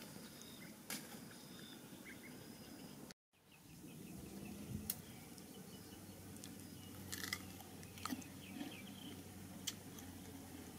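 Quiet outdoor background with scattered small clicks and taps from hands handling things in a bamboo basket. The sound drops out for a moment about three seconds in.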